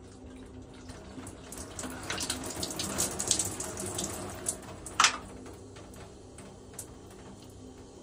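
Cola poured from a plastic bottle into a bottle of Mentos candies, the liquid rushing and splashing as it spills over into a bathtub. A single sharp knock comes about five seconds in.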